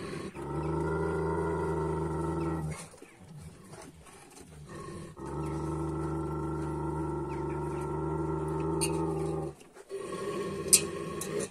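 Large Kangal-type shepherd dog growling deeply over its food, a warning to the other dogs at the bowls: one long growl, a pause, then a longer one. A sharp click sounds shortly before the end.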